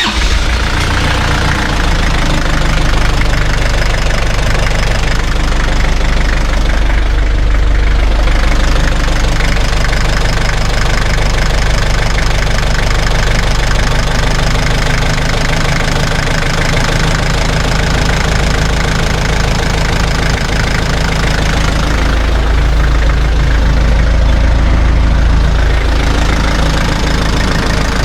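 Isuzu Elf NHR69 truck's diesel engine idling steadily, run so the freshly topped-up power steering system can be checked for a leaking high-pressure hose.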